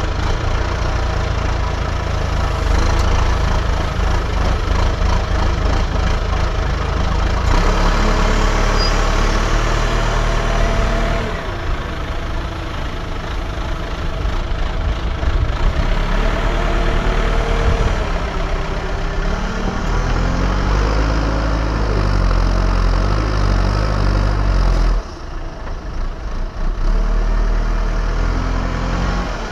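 Diesel engine of an earthmoving machine working, its pitch rising and falling as it is loaded and throttled. The sound changes abruptly a few times and drops briefly quieter near the end.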